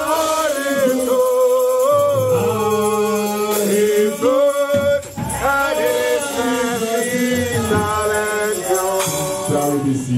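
A worship song in a church service: a voice singing a flowing melody over instrumental backing.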